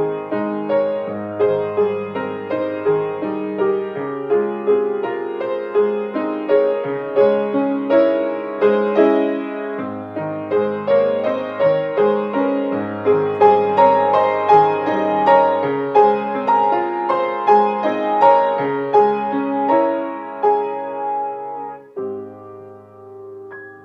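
Background piano music: a flowing melody of struck notes over held low bass notes. It drops noticeably softer about 22 seconds in.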